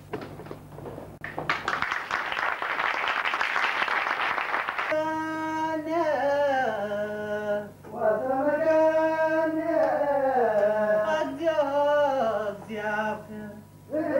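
Audience applause for about three seconds, then a single unaccompanied voice begins a slow chant, holding notes and sliding between them.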